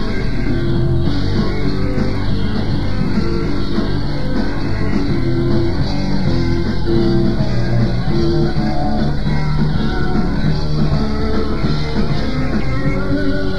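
A hard-rock band plays live: drums, bass, keyboards and electric guitar. It is a cassette recording, so the pitch wavers with wow and flutter.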